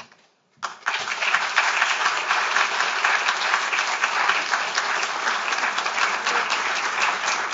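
Audience applause, many hands clapping at once. It breaks in suddenly after a brief hush about half a second in and keeps up at an even level.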